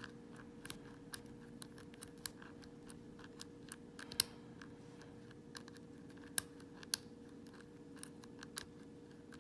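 Steel lock pick working the pin stack inside an old Corbin padlock: irregular sharp metallic clicks and light scraping as the pins are raked and set under tension, over a faint steady hum.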